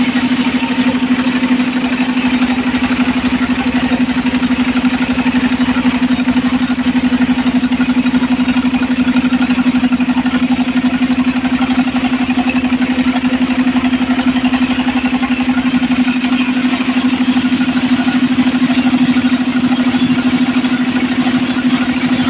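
Engine of a homemade circular saw rig running steadily at a constant pitch.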